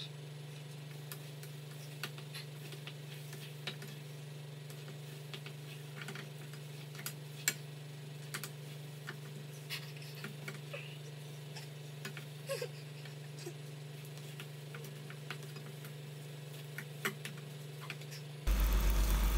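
Faint steady low hum with scattered light clicks and ticks, a few a second at most and irregular.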